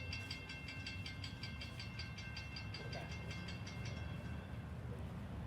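Railroad grade-crossing bell ringing rapidly, about four to five strokes a second, fading out about four seconds in. Under it runs the low rumble of a passing Amtrak passenger train.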